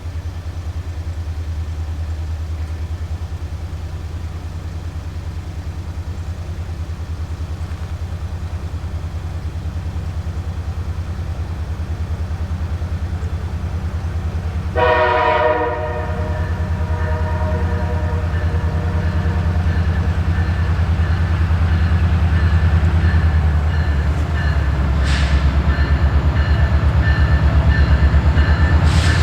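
EMD diesel-electric locomotives approaching: a steady low engine rumble that grows louder, with one short air horn blast about halfway through.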